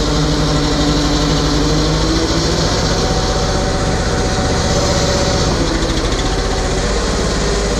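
RS1000 side-by-side's engine idling steadily, its note shifting slightly about two seconds in and again near six seconds.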